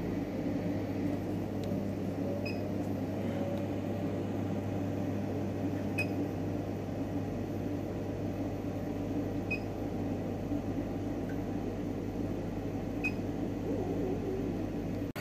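Steady electric hum inside a homemade refrigerator-cabinet egg hatcher, with a short high chirp every three to four seconds.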